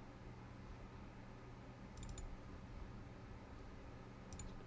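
Computer mouse clicking: a quick run of three or four clicks about two seconds in and a double click near the end, over a faint steady low hum.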